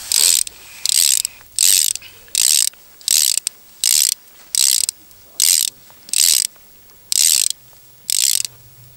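Small ice-fishing reel's ratchet clicking in short bursts as its handle is turned, about one burst every three-quarters of a second.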